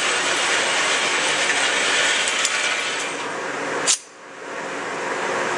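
A single gunshot about four seconds in, over a steady hiss of background noise. The noise drops away for a moment right after the shot and then comes back.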